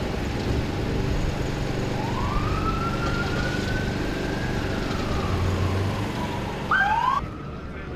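Emergency vehicle siren in a slow wail: it rises in pitch about two seconds in, then slowly falls. A short, louder whoop near the end cuts off abruptly, over a steady low rumble of engine and traffic.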